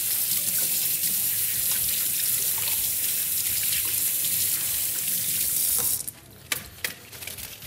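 Kitchen tap running as a leek is rinsed under the stream to wash out grit; the water is shut off suddenly about six seconds in, followed by a few short knocks.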